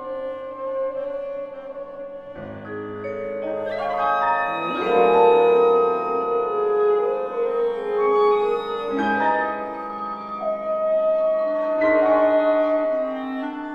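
Contemporary chamber ensemble of clarinet, horn, percussion, violin, cello and piano playing held, overlapping notes, with fresh chords entering about two and a half, five, nine and twelve seconds in. It swells louder from about five seconds in.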